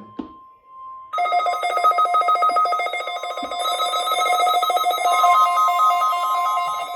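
NOAA weather radio receivers alarming for a required weekly test: a single steady tone, then about a second in a loud electronic siren starts, a rapid warbling alarm on several steady pitches that keeps going.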